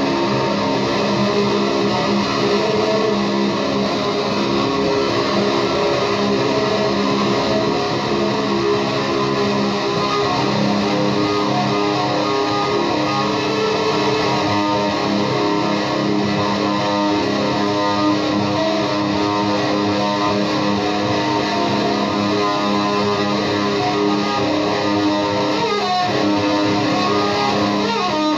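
Electric guitar played through an Orange amp, a dense, steady wall of psychedelic noise with sustained notes layered over a looped part. Near the end a note sweeps upward in pitch.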